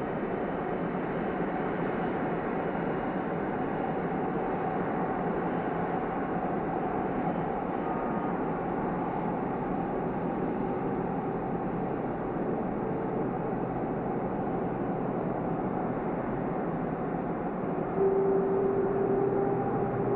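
Boeing 777 jet engines running at taxi power, a steady rumble and hiss. Near the end a steady whine comes in and the sound grows a little louder.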